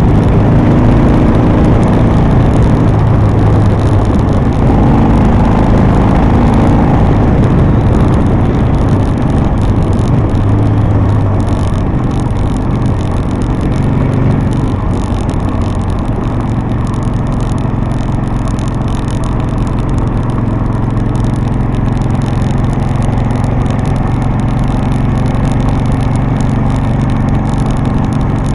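Harley-Davidson V-twin motorcycle engine running on the road, its note shifting with the throttle in the first half and then holding steady at cruise, with wind noise on the microphone.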